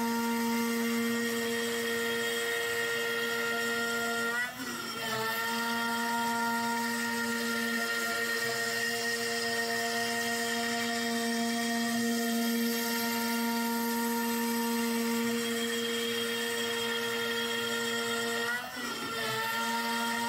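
NymoLabs trim-router spindle on a CNC router, set to speed dial 3, running with a steady high whine as its end mill cuts a profile in MDF. Twice, about four and a half seconds in and near the end, the pitch dips briefly and then recovers as the bit plunges down to the next depth pass.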